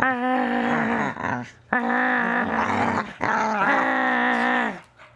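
Young pit bull play-growling while mouthing a hand: three or four long, wavering growls, each a second or more, with short breaks between.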